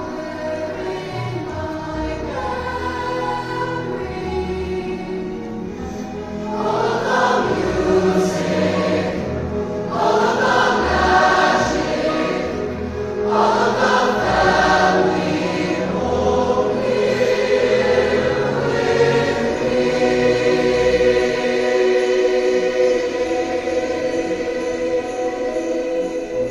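A choir singing sustained chords. Three louder swells of voices come about a quarter, two-fifths and half of the way through.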